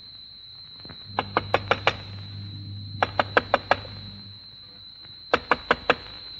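Knocking on a wooden door: three quick rounds of about five rapid knocks each, with short pauses between rounds, the last round a little shorter. A steady high-pitched whine runs underneath.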